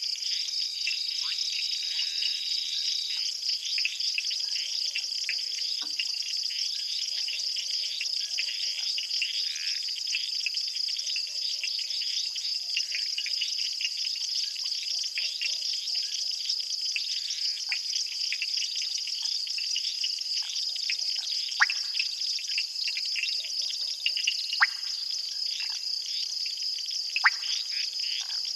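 Night chorus of crickets and other insects, a steady high trill, with many short sharp chirps scattered over it and a few louder ones in the second half.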